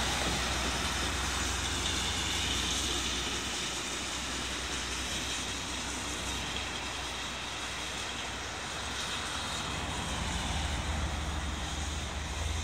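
Railway maintenance-of-way track machines running along the track and moving away, a steady mechanical rumble that fades a little as they go. Wind rumbles on the microphone, strongest near the end.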